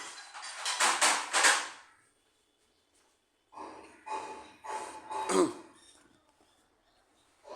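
Hand tools and metal and plastic engine parts clattering and scraping while an ignition coil is fitted, in two bursts of handling noise, the second ending in a short falling squeak. The engine is not running.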